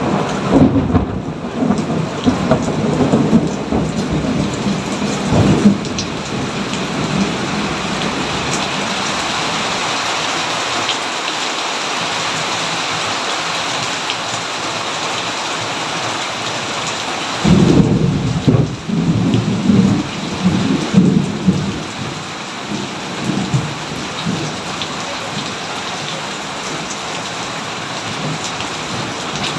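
Thunderstorm: steady rain with thunder. One roll of thunder rumbles at the start and dies away by about six seconds in. A second clap breaks suddenly a little past halfway and rumbles on for a few seconds.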